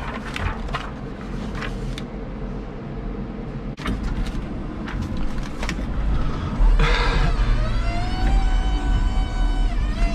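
Electric forklift running, with a low rumble throughout and a single sharp knock a little before four seconds. From about seven seconds in, its electric motor gives a steady multi-tone whine that fades out near the end.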